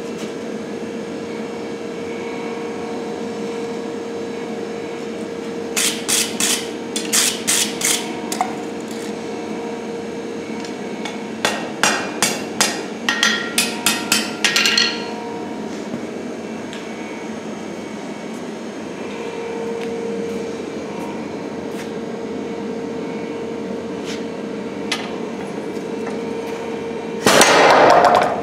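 Two runs of hand-hammer blows on hot steel on an anvil, about six seconds in and again about twelve seconds in, over a steady hum. Near the end an MLZ 75 pneumatic power hammer starts up, much louder, its ram striking rapidly with a rush of air.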